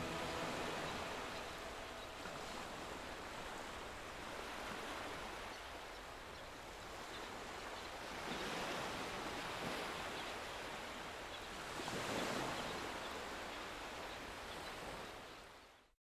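Sea surf: waves washing and breaking, swelling louder about eight and again about twelve seconds in. The tail of a music track dies away at the start, and the surf fades out quickly at the end.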